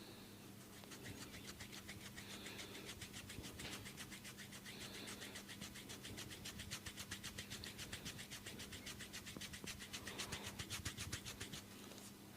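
A barber's hands tapping rapidly and evenly on a client's head during a head massage, about seven taps a second. The tapping starts about half a second in and stops near the end.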